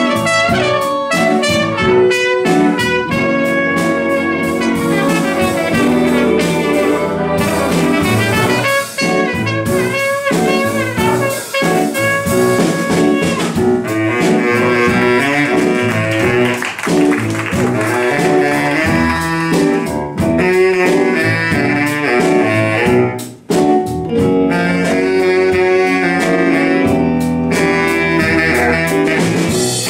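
Big band playing an instrumental jazz passage without vocals: saxophone section, trumpets and trombones over double bass. The horns grow brighter about halfway through.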